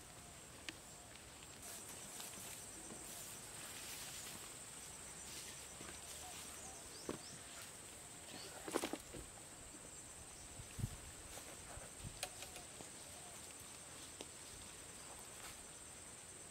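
Faint footsteps on grass and leaf litter over a steady, high insect drone, with scattered light knocks and rustles and a louder knock and rustle about nine seconds in.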